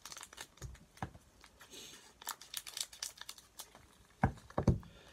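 Foil Pokémon booster pack wrapper crinkling and being torn open, a run of small crackles and rips, with two dull knocks a little past four seconds in.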